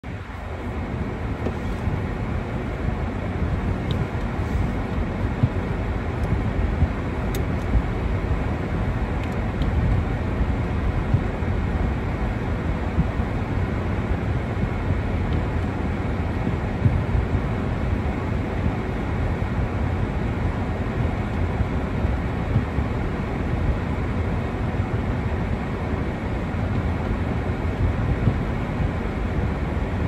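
Steady low rumble of a car driving on a wet road, heard inside the cabin: tyre and engine noise, with a few faint ticks.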